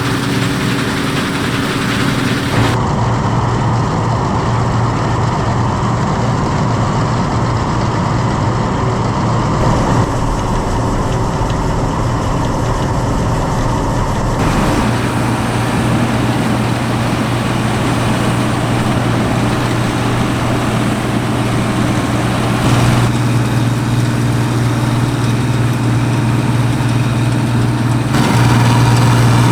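Claas Dominator 85 combine harvester's diesel engine and threshing machinery running steadily under load while harvesting wheat, with a strong low hum. The sound shifts abruptly several times, as if from one recording to another.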